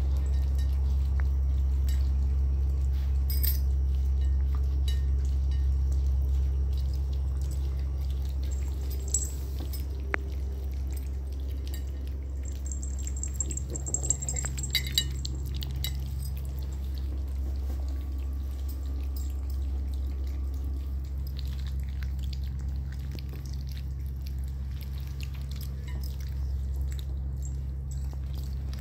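Puppies lapping and chewing wet food from a stainless steel bowl: many small wet clicks and smacks, with a few sharper clicks against the bowl around the middle. A steady low hum runs underneath.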